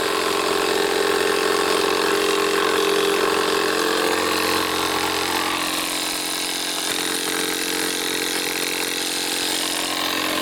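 Audew 12V DC digital tire inflator's small piston compressor running steadily as it pumps a large truck tire past 40 PSI. The sound changes slightly and gets a little quieter about halfway through.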